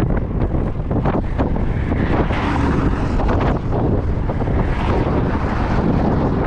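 Strong wind blasting across the microphone: a loud, steady rumbling noise that flares in short gusts.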